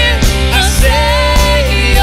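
Live worship band playing: singers over acoustic and electric guitar, bass guitar, keyboard and drums, with a steady drum beat.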